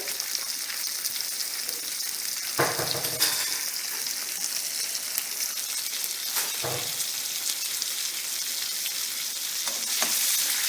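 Chopped tomato sizzling as it fries in hot tempered oil in a kadai, a steady hiss. A spoon stirring the pan knocks or scrapes a few times, about two and a half seconds, six and a half seconds and ten seconds in.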